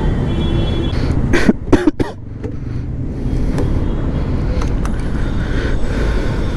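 Bajaj RS200's single-cylinder engine running on the move, mixed with a dense low wind and road rumble on the rider's microphone. Three sharp loud sounds come close together about a second and a half in.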